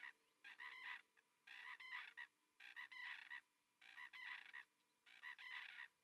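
A flock of golden plovers calling in flight: about six calls, each under a second, coming about once a second.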